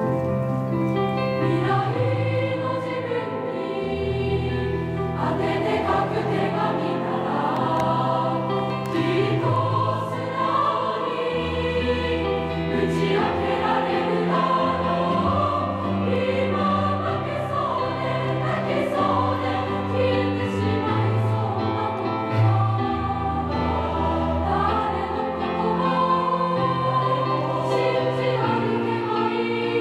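A large student choir singing a slow song in many voices, accompanied by keyboards with a held bass line that moves every few seconds.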